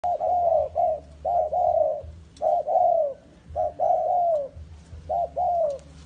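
Spotted dove cooing: four phrases, each a short note followed by a longer one that falls in pitch, the first phrase longer than the rest.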